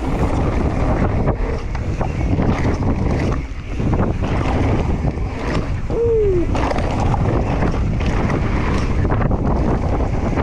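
Wind buffeting the handlebar camera's microphone while a Santa Cruz Megatower mountain bike rolls fast downhill over gravel, its tyres rumbling and the bike rattling and knocking over bumps. A short falling squeal comes about six seconds in.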